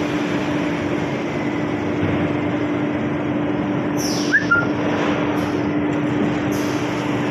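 Steady running noise of plywood mill machinery, with a constant low hum throughout. A short hiss and a brief squeak come about four seconds in.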